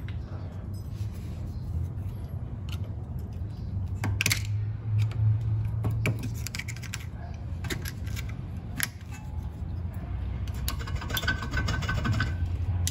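Small metal clicks, taps and scrapes of a screwdriver working the parking-brake clip and pin on a rear brake caliper, with a short metallic ringing near the end, over a low steady hum.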